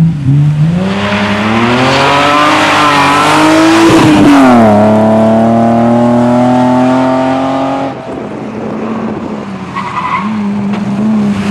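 BMW 325i rally car's straight-six engine accelerating hard, revs climbing for about four seconds over the hiss of gravel thrown from the tyres, dropping at an upshift and then pulling steadily again. About eight seconds in it turns quieter and more distant, and near the end the engine revs up once more.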